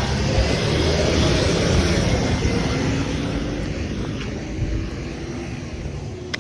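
Bin lorry's diesel engine running under load, its pitch rising and then falling, the sound fading over the last few seconds as it pulls away.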